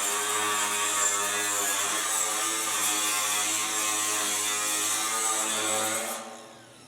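Electric drill running with a 1/4-inch bit, drilling holes in a sheet-steel truck roof skin, with a chattering whine that shifts in pitch; it fades out near the end.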